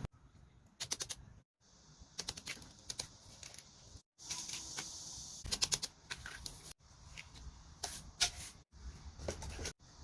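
Small plastic toys and packaging handled by hand, giving quick clusters of light clicks and taps, a few at a time, that break off abruptly several times.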